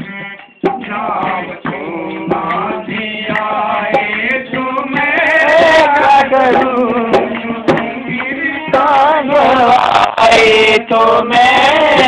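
Male voice singing a devotional bhajan to harmonium and dholak, with sharp drum strokes keeping the rhythm. The music drops out briefly about half a second in.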